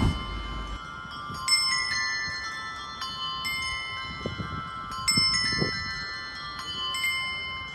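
Slow background music of ringing, bell-like struck notes, several sounding together, a new cluster every second or two.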